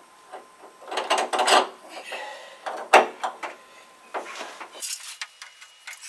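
Metal hand tools clanking, knocking and scraping as a socket wrench and a long steel pipe for leverage are worked onto a seized water heater heating element. The sharpest knock comes about three seconds in.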